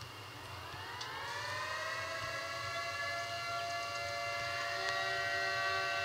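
Civil defense siren winding up: its pitch glides upward over about two seconds, then holds steady as it grows louder.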